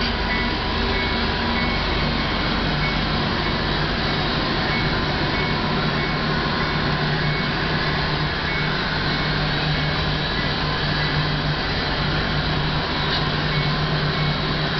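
HO scale model passenger train running along the layout track: a steady rolling hum, with a low steady tone joining in about two seconds in.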